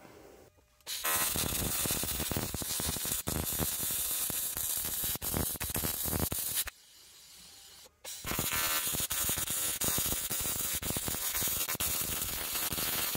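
AC TIG welding arc buzzing steadily while melting filler into dirty, porous cast aluminum, with occasional pops as impurities bubble up. The arc strikes about a second in, breaks off for about a second past the middle, then restarts.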